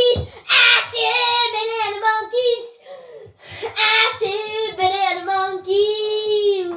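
A child singing a theme song solo with no accompaniment, in phrases broken by a short pause partway through and ending on a long held note. A brief low thump sounds just after the start.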